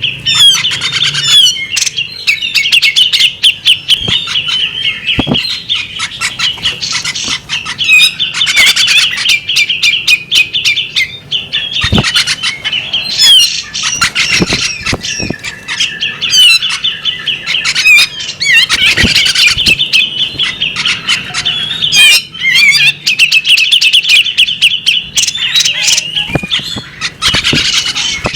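Female magpie-robin calling without pause: fast, dense chattering of harsh, scratchy notes mixed with short whistles.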